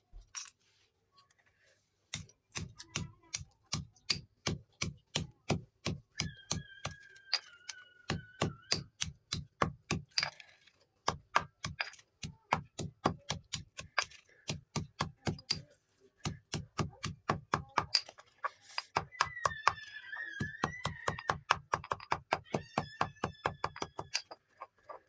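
Brittle chalk sticks being crushed, giving a long run of crisp, evenly spaced cracks at about four a second after a brief quiet start, with short pauses between runs. A faint wavering high tone sounds twice behind the crunching.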